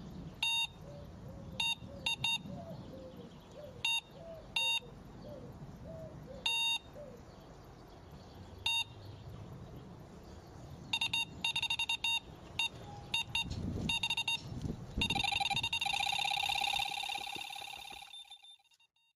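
Electronic computer-style beeps from an intro sound effect: single short beeps at irregular intervals, turning into rapid strings of beeps about eleven seconds in and a continuous warbling beep for the last few seconds, over a low rumble. It cuts off about a second before the end.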